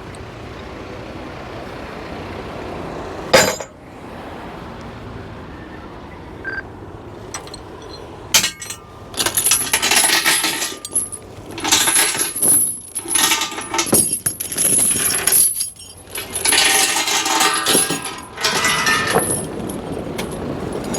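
A steady low running noise with a single sharp knock about three and a half seconds in, then repeated metallic clinking and rattling in uneven bursts from about eight seconds on.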